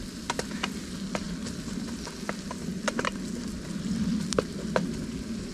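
Chopped onions frying in olive oil in a camp pot, a steady sizzle with scattered crackles and pops, stirred with a wooden spatula.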